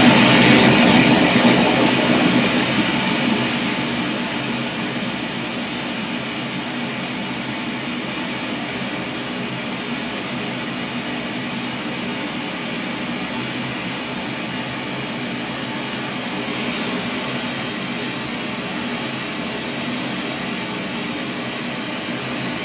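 Pink noise test signal played through a loudspeaker into the room: a loud, steady hiss, a little louder in the first few seconds before settling. It is the excitation signal for a transfer-function measurement of the sound system, reading about 87 dB SPL A-weighted at the measurement microphone.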